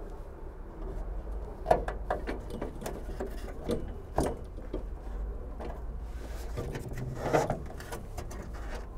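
Handling noises from parts being pushed into a steel car trunk lid by hand: a few scattered clicks and knocks, then a louder brief scraping rub about seven seconds in, over a low steady rumble.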